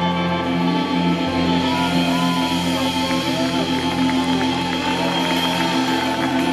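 Live band music played loud through a concert PA, heard from the audience: a full band with drums, electric guitar and a horn section.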